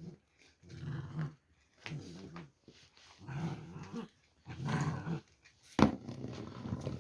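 Kangal puppy growling at a broom in short, rough bouts about every second and a half. About six seconds in there is one sudden, sharper and louder burst.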